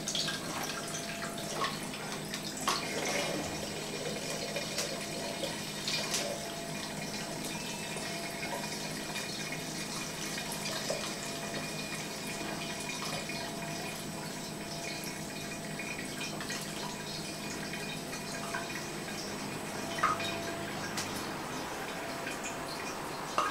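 Nocino (walnut liqueur) being poured through a filter, running and trickling steadily, with a few short knocks along the way.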